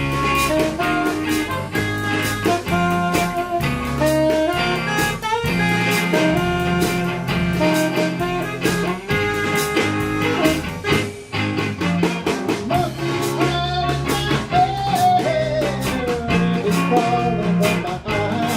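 A live band playing an instrumental break: a melody over a bass line and a steady beat.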